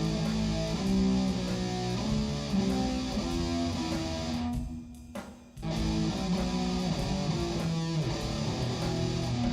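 Guitar instrumental music, with plucked and sustained guitar notes over a low bass line; it drops away briefly about halfway through, then resumes.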